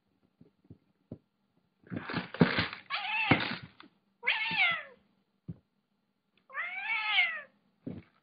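Orange tabby cat meowing several times: a harsh, rasping cry about two seconds in, then shorter meows, and a long drawn-out meow near the end. A few light knocks come between the calls.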